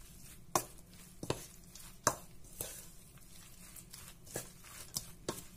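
A metal spoon stirs grated raw potato in a stainless steel bowl. About seven sharp clinks sound at uneven intervals as the spoon strikes the side of the bowl.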